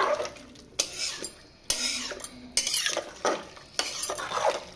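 A long steel spoon stirring a pot of rice and boiling water in a metal pressure cooker, scraping and clinking against the pot's sides and bottom in irregular strokes.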